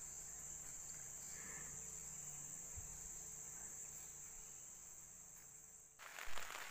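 Steady, high-pitched drone of insects in riverside forest. About six seconds in it cuts off suddenly and a louder, even hiss like rain takes over.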